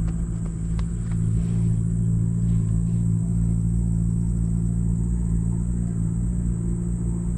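An engine running steadily, giving an even, low drone that holds one pitch without revving, with a few faint clicks in the first second or so.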